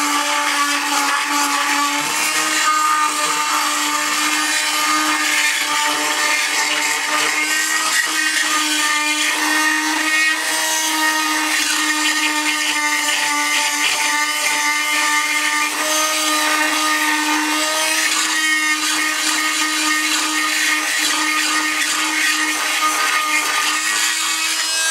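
Chicago Electric oscillating multi-tool with a carbide tile and masonry blade running steadily, its blade vibrating against the old mortar on a floor tile's surface. A loud, even buzz that dips a little in pitch about two seconds in.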